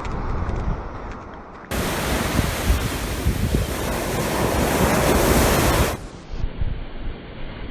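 Storm-driven waves of the Sea of Azov washing on the shore, with wind gusting on the microphone. A louder hissing rush lasts from about two to six seconds in.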